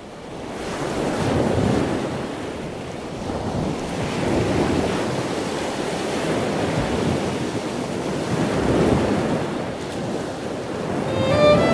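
Ocean surf: waves breaking and washing up the beach in slow swells, with wind on the microphone. Music with sustained notes comes in near the end.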